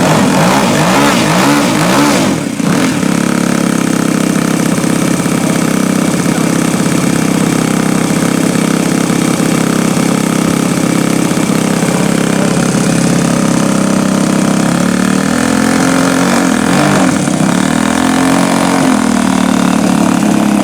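Saito 125 four-stroke glow engine in an RC airplane, running on 15% nitro fuel with the propeller turning, making a steady puttering. The pitch wavers near the start and again about fifteen seconds in.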